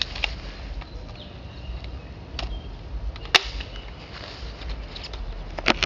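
Airsoft guns firing: a handful of sharp, isolated snaps spread over several seconds. The loudest comes about three seconds in, with two close together near the end.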